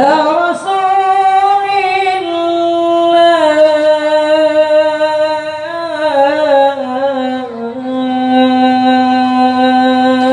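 Young male qari reciting the Quran in melodic tilawah style into a microphone: one long held phrase that starts suddenly, its pitch stepping down gradually through ornamented turns and settling on a low sustained note.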